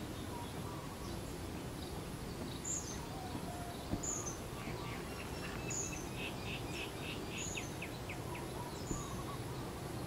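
Outdoor ambience of steady background noise with small birds chirping: short high chirps about once a second, and a quick run of chirps around the middle. A faint high tone pulses about twice a second underneath.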